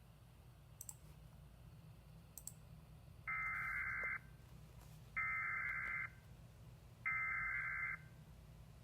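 Emergency Alert System SAME header for a tornado warning: three short bursts of data tones, each a little under a second long, with about a second between them.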